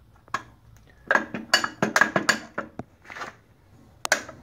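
Metallic clinks and clanks of a cast-iron Simplex toe jack being pulled up and set under a heavy machine's foot: a single click, then a quick run of ringing metal knocks, and another knock near the end.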